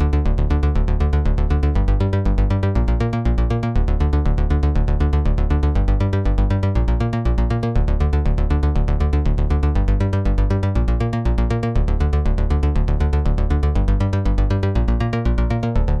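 Electronic synth loop with a rapid, even pulse of short notes over a heavy bass, played through the Devious Machines PitchMonster granular pitch-shifter set to 0 semitones.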